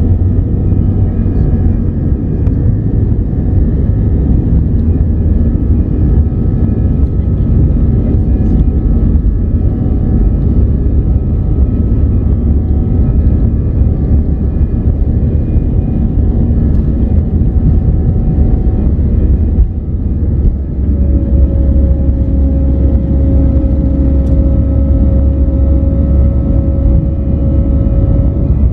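Airbus A319's CFM56 turbofan engines at takeoff thrust, heard from inside the cabin beside the engine during the takeoff roll: a loud steady rumble. About two-thirds through, the rumble dips briefly as the aircraft lifts off, and a steady engine hum then holds.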